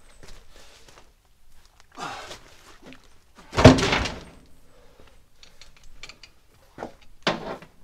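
A log round dropped onto the bed of an old Ford one-ton truck: one heavy thunk about three and a half seconds in, with a few lighter knocks of wood near the end.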